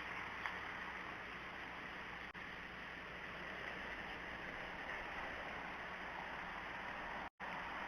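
Steady outdoor background hiss picked up by the nest camera's microphone, with a faint low electrical hum underneath. A faint short tick comes just after the start, and the sound drops out completely for a split second near the end.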